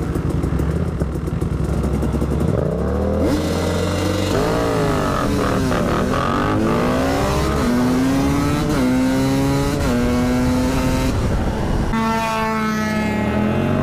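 Husqvarna enduro motorcycle's single-cylinder engine idling, then revving up and pulling away, climbing through several gears with the pitch falling back at each shift. Near the end the revs drop and climb again. Wind rushes on the helmet camera's microphone once the bike is moving.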